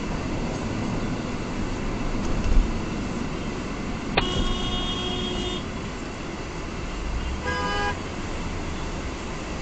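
Car horn honks twice: a long honk of about a second and a half, then a short one about three seconds later, over steady road noise heard from inside a moving car.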